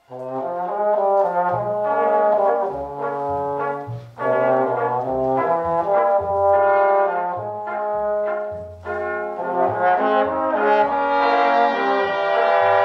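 A cobla, the Catalan wind band, playing, with its brass (trumpets, trombone and fiscorns) to the fore over a moving bass line. The band comes in right after a brief silence, with short breaths between phrases.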